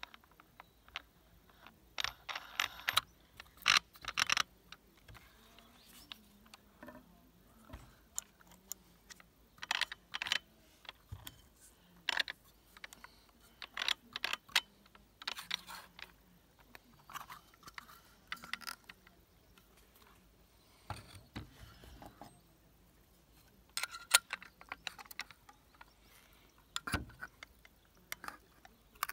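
Metal clicks and clinks from parts and tools being handled while a disc is changed on an angle grinder. They come in irregular clusters separated by short pauses.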